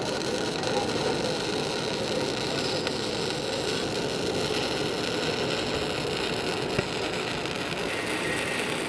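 Self-shielded flux-core (gasless) MIG welding arc sizzling steadily on galvanized steel handrail tubing, run uphill at 17 volts with the wire speed at 250.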